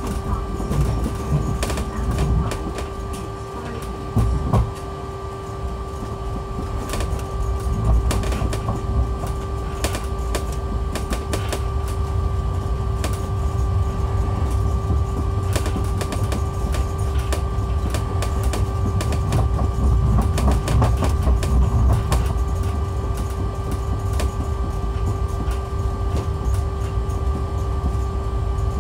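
Heathrow ULTra pod, a battery-electric driverless car on rubber tyres, heard from inside its cabin as it pulls away and runs along its guideway. A steady two-note electric whine runs throughout, and tyre and running rumble grows louder after about six seconds, with scattered clicks and rattles.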